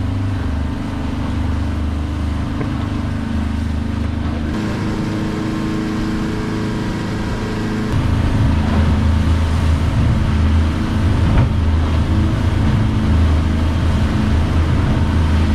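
Outboard motor of a small boat running steadily under way, with water rushing along the hull. The drone gets louder about eight seconds in.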